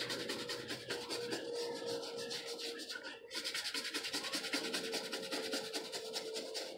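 Toothbrush bristles scrubbing the wet, shampooed sweatband inside a baseball cap in quick back-and-forth strokes, with a short pause about three seconds in.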